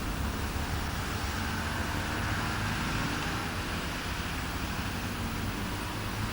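Heavy diesel earthmoving machinery running steadily: a low engine rumble under a broad hiss that swells slightly about two seconds in.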